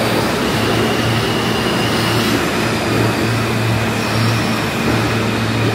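New York City subway train running along the station platform: a loud, steady rumble of wheels on rails, with a faint steady high whine above it.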